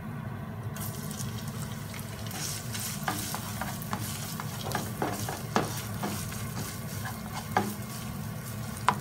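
Crushed ginger and garlic sizzling as they hit hot oil in a nonstick frying pan, the sizzle starting under a second in. A spatula stirs them, scraping and tapping the pan every second or so.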